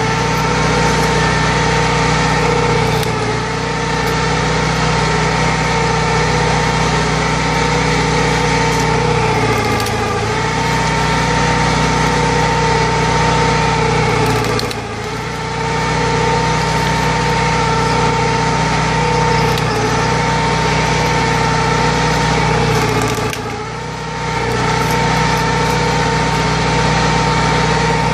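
Engine powering hydraulic loppers, running steadily; its note dips briefly about three times.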